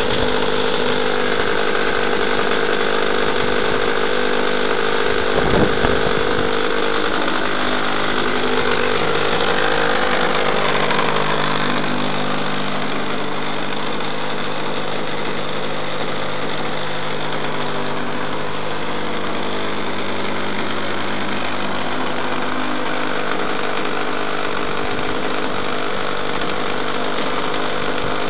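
ASP 61 two-stroke glow engine on a Flair Fokker D.VII model biplane running on the ground. A short thump comes about five and a half seconds in. The engine speed shifts around eight to twelve seconds in, then settles to a steady, slightly quieter run.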